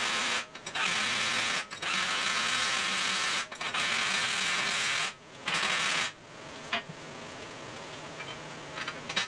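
Cordless drill spinning a socket onto grade 8 fine-thread flanged bolts, in several runs with short pauses between them, stopping about six seconds in. A few light clicks of metal parts being handled follow.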